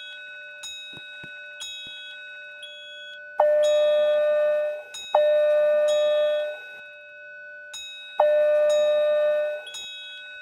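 Building fire alarm system sounding during a test: a steady electronic tone with rapid, irregular ticking, broken by three loud sustained tones of about a second and a half each, the first two back to back and the third after a short pause.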